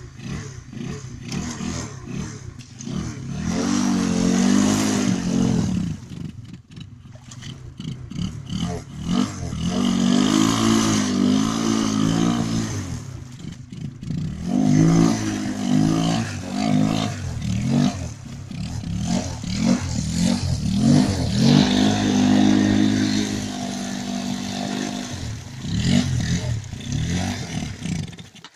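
Homemade two-wheel-drive motorcycle's engine revved hard under heavy load while bogged in deep mud and water. The revs rise and fall in several long bursts of a few seconds each, dropping back lower between them.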